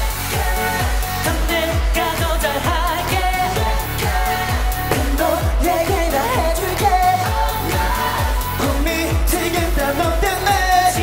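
K-pop song playing: singing over a heavy kick-drum beat, about two beats a second.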